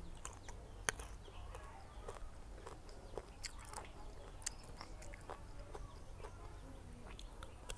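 Close-up crunching and chewing of crisp unripe green mango slices, a run of irregular sharp crunches.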